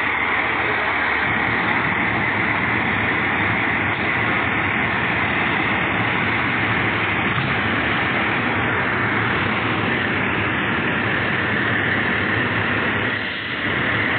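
Aerial ladder fire truck's engine running steadily close by, with a brief dip about 13 seconds in.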